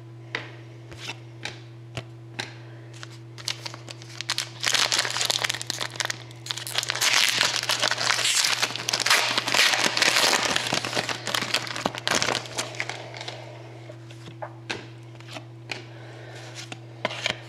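Trading-card pack wrapper being torn open and crinkled for several seconds in the middle, with light clicks and taps of cards being handled before and after. A steady low hum runs underneath.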